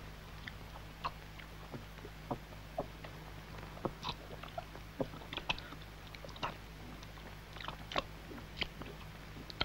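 A man eating greedily, beans and bread: wet chewing and mouth smacks with scattered short clicks, over a steady low soundtrack hum.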